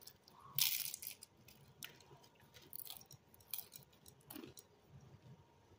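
A person chewing food close to the microphone, with wet mouth clicks and smacks. A louder noisy burst comes a little over half a second in.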